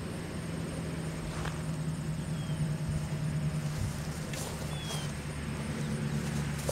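ACA Allertor 125 dual-tone rotating siren near the end of its wind-down, giving a low, steady hum, with a few faint clicks.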